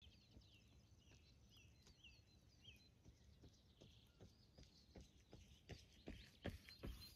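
Faint chirps of small songbirds. From about halfway, footsteps come closer along the road, about two or three a second and growing louder.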